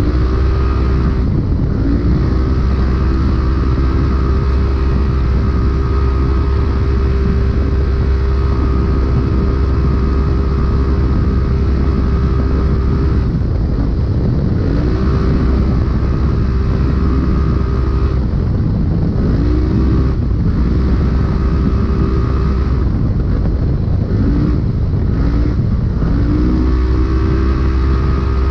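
Polaris RZR UTV's engine at race pace: the revs climb quickly and then hold at a steady pitch for long stretches, dipping and climbing again several times in the second half, over a constant rush of loud noise.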